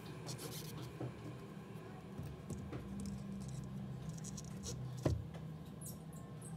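Light scattered clicks and scratching from small tools at a bench, over a low steady hum, with one sharper knock about five seconds in.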